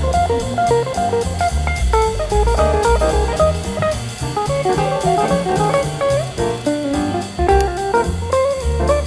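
Background music: a plucked guitar melody of short notes over a bass line and a steady drum-kit beat.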